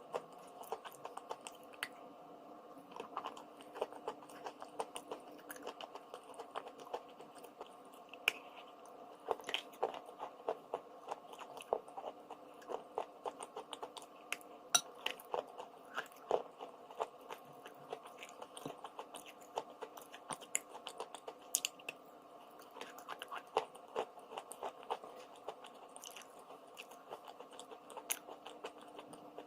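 A mouth close to the microphone chewing and biting crunchy edible chalk, a steady run of small crisp crunches and clicks, over a faint steady hum.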